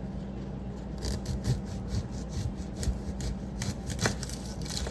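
A kitchen knife cutting an onion on a cutting board: irregular light taps and scrapes of the blade, over a steady low hum.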